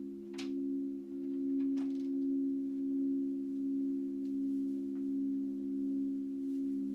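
Several singing bowls sounding together as a sustained drone of three low steady tones, with a slow rise and fall in loudness.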